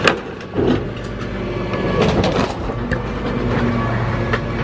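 Rear-loader garbage compactor truck running, its compactor crushing bookshelves in the hopper: a steady engine hum broken by loud cracks and bangs of breaking furniture, the sharpest right at the start and more about two seconds in.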